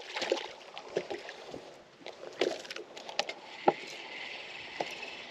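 Water lapping and splashing at the side of a bass boat as a hooked bass is brought up and landed by hand, with scattered light knocks and clicks.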